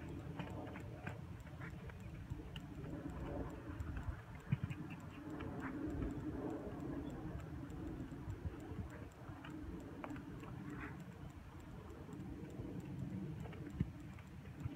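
Hoofbeats and tack of a ridden Thoroughbred moving around a sand arena: a run of light, irregular clicks over a low rumble.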